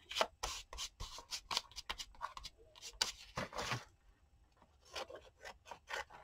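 Scissors snipping paper, and paper crackling as it is handled: a run of short, sharp snips and crackles that thins out about four seconds in.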